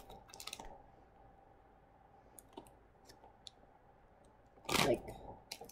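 Plastic snack bag crinkling for about a second as it is held up to the nose, then a quiet room with a few faint ticks. A short loud vocal sound comes near the end.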